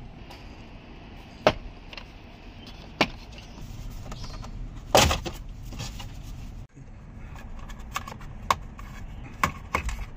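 Plastic trim clips snapping as the Tesla Model 3/Y steering column trim is pried off and taken apart with a plastic pry tool. Several sharp clicks, the loudest about five seconds in and a quick cluster near the end.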